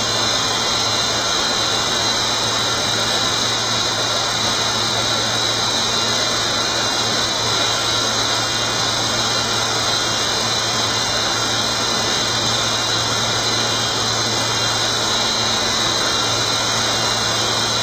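9060 CNC router running steadily: a constant whir with a high whine over a low hum.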